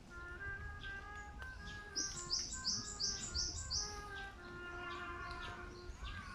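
Birds chirping, with one bird giving a quick run of about six high chirps about two seconds in. A soft melody of steady notes plays underneath.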